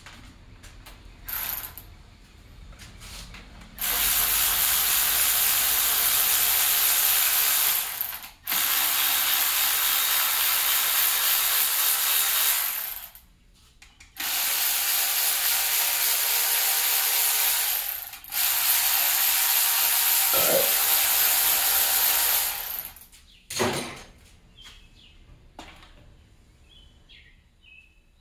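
Power ratchet running in four steady runs of about four seconds each, spinning out bolts, with a few short knocks of metal parts before and after the runs.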